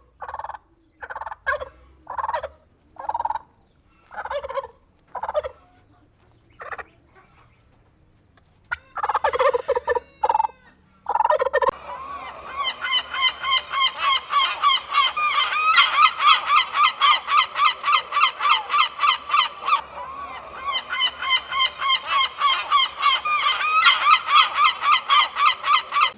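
Domestic fowl calling. First come short separate calls spaced under a second apart, then from about twelve seconds in a long run of rapid repeated calls, about three a second.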